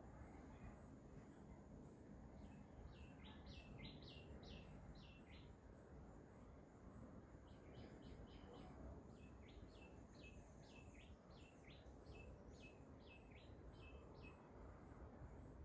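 Faint outdoor background with a small bird chirping: two runs of short, quick, falling notes, the first a few seconds in and a longer one from about halfway to near the end. A faint, high, even ticking about twice a second runs beneath, likely an insect.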